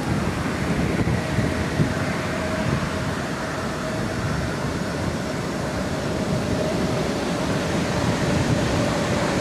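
Wind buffeting the microphone over lapping river water, with a distant Norfolk Southern freight train running across a steel truss bridge. A faint steady whine comes in about a second in.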